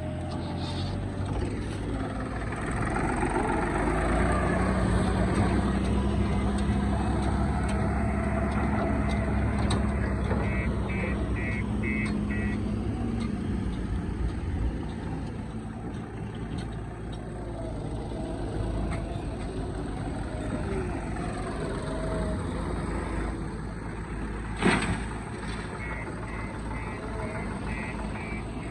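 JCB 3DX backhoe loader's diesel engine running, revving higher a few seconds in and settling back down about halfway. A reversing alarm beeps in a short series twice, near the middle and near the end, and there is a single sharp clank a few seconds before the end.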